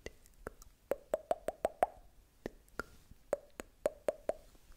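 Tongue clicks made close to a microphone: sharp, hollow pops in two quick runs of five or six, about six a second, with single clicks scattered between.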